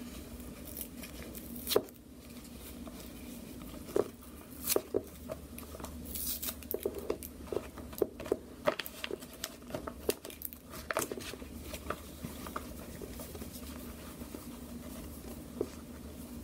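Adhesive tape being peeled off cotton boxer briefs while a clear plastic packaging bag crinkles: irregular short bursts of tearing, crinkling and rustling, busiest in the middle.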